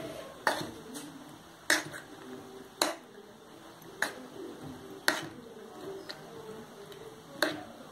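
Spoon clinking against a small stainless-steel cup while eggs are beaten with chopped shallots and drumstick leaves: six sharp clicks, about one a second, with a pause before the last.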